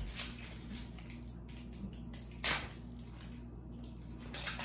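Foil trading-card pack wrapper being handled, crinkling in a few short bursts, with one loud sharp crackle about halfway through.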